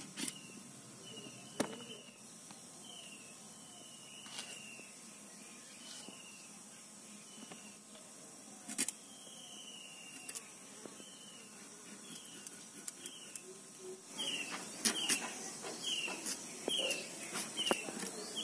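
Sharp clicks of vegetables being sliced on a boti, a fixed curved cutting blade, scattered through and more frequent near the end. Behind them a bird repeats a short falling call, faster in the last few seconds, over a steady high insect hiss.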